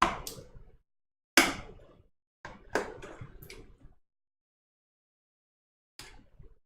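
G.Skill Trident Z RGB RAM sticks being pushed into the motherboard's memory slots: a handful of sharp clicks and knocks, about five in the first four seconds and one more near the end.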